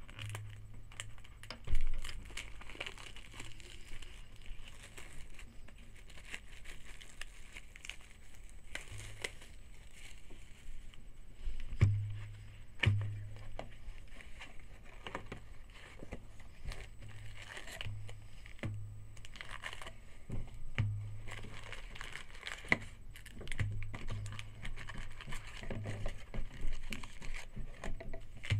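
Trading-card pack wrappers crinkling and being torn open, with scattered handling clicks and a couple of sharper knocks. A low hum comes and goes throughout.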